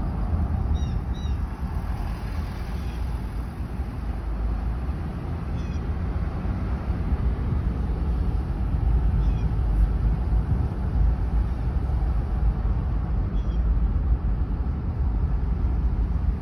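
Car driving, its road and engine noise heard from inside the cabin as a steady low rumble. A few short, faint high chirps come through it several times.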